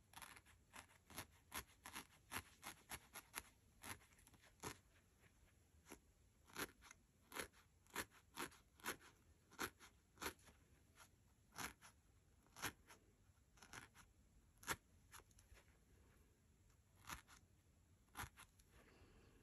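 Barbed felting needle stabbing repeatedly into a ball of wool. The stabs come as short sharp clicks at an uneven pace of about one or two a second, with a brief pause about three-quarters of the way through.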